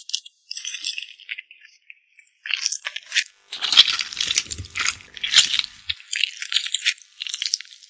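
Close-miked crisp crackling, clicking and scraping as a metal comedone-extractor loop and tweezers prise the thin translucent skin off corn kernels, with small metallic clinks. The crackles come in clusters, with a brief pause about two seconds in.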